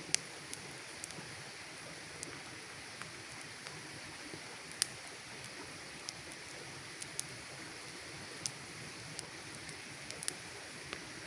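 Wood campfire burning: a steady soft hiss with irregular sharp crackles and pops, two louder pops, one just after the start and one near the middle.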